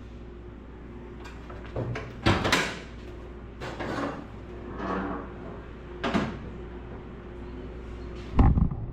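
A string of clunks and scrapes from something being handled, loudest about two and a half seconds in, ending in a heavy low thump near the end, over a steady low electrical hum.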